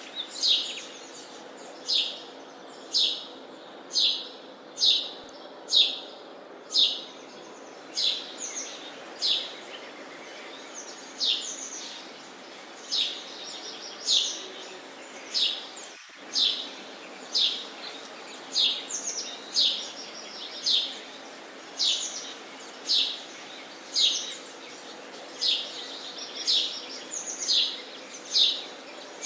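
Sparrow chirping: short, high, falling chirps repeated steadily at about one a second.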